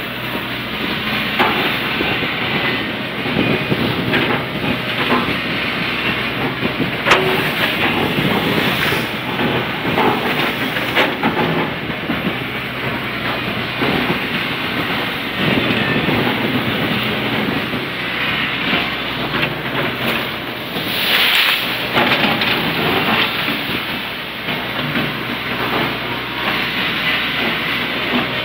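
Excavator's diesel engine running under load while its bucket strokes through the water to paddle the barge it stands on, with water churning and splashing. A few sharp knocks, and a louder rush of splashing about 21 seconds in.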